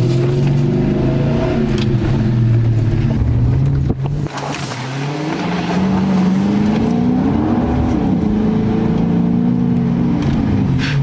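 Car engine running and accelerating: its pitch dips briefly about four seconds in, climbs, then settles back down near the end.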